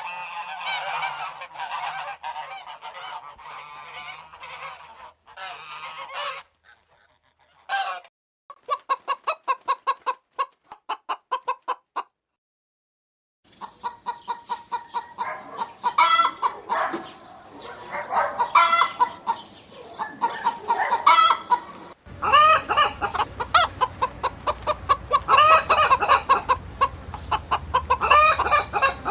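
Domestic poultry calling in several back-to-back recordings, mostly clucking chicken-like calls. Near the middle comes a quick run of evenly spaced short calls, then a short silence. A denser, busier bout of calling with a low background rumble begins abruptly in the last third.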